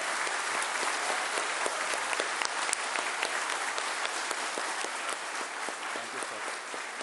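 A large audience applauding, many people clapping together in a dense, even patter that eases off a little near the end.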